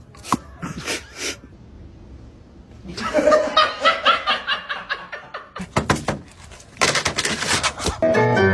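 A person laughing hard in repeated bursts, after a few short knocks in the first second or so. Music begins right at the end.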